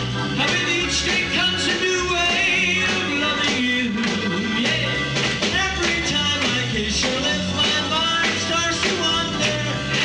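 Live rock-and-roll show band playing, with a man singing lead into a microphone over a steady drum beat.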